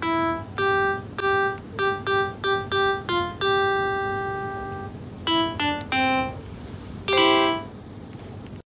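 Background music: a light melody of single pitched notes, about two or three a second, with one note held for over a second near the middle, stopping abruptly at the end.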